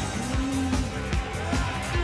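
Live band playing pop-rock with a steady drum beat and a strong bass line.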